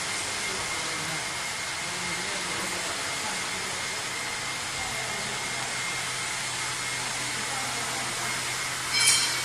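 Steady machine noise like blowing air from glass-cutting equipment, with a low hum joining about halfway through. A short, bright clink sounds about nine seconds in.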